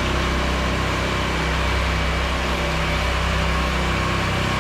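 Engine-driven pressure washer running steadily, with an even hiss of water spray from the rinse.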